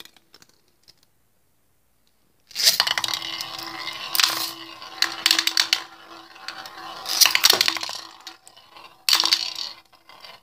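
A spinning Beyblade top scraping and rattling over a glass pot-lid stadium with a steady hum, starting about two and a half seconds in after a pause. Louder clatters come at several points as it knocks about the dish and its rim.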